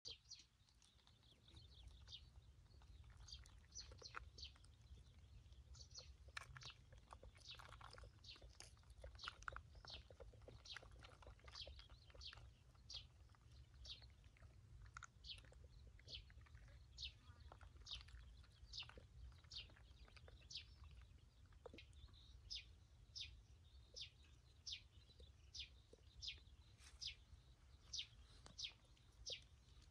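Faint bird calls: a short, high descending chirp repeated about once or twice a second, over a steady low rumble.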